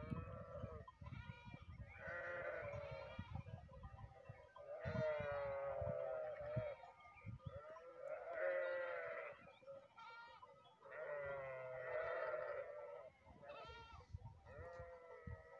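Flock of sheep bleating, many calls overlapping in waves that swell and fade every few seconds.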